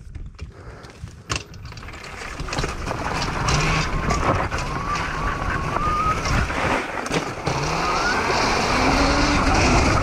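Homemade electric dirt bike pulling away and riding along a dirt forest trail: a steady rushing of wind and tyres on dirt that grows louder from about two seconds in as it picks up speed. A few clicks and knocks come as the rider gets going.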